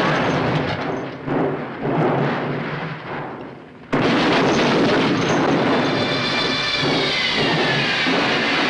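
Film sound of a car tumbling down a dirt hillside. A loud crashing rumble cuts in suddenly about four seconds in and keeps going, with a high tone gliding downward over it.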